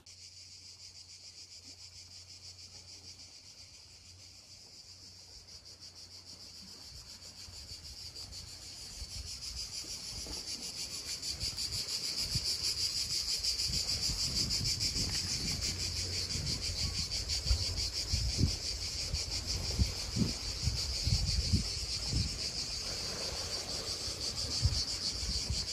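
A chorus of cicadas in the pine trees: a steady, high-pitched rasping buzz that swells from faint to loud over the first half and then holds. A few low thumps come in the second half.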